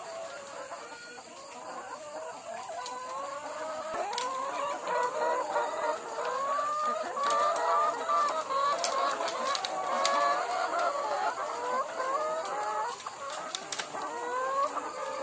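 A flock of caged laying hens clucking and squawking together, many short overlapping calls, growing louder a few seconds in. A few sharp clicks are scattered among them.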